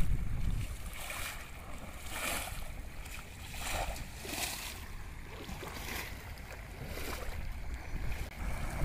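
Feet wading and splashing through shallow, fast-flowing muddy floodwater, a splash about every second, over the steady rush of the water and the low rumble of wind on the microphone.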